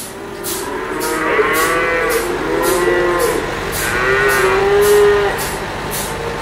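Dairy cows mooing, several overlapping calls, with two louder rising-and-falling moos about a second and a half and four and a half seconds in. Behind them is a steady hissing pulse about twice a second.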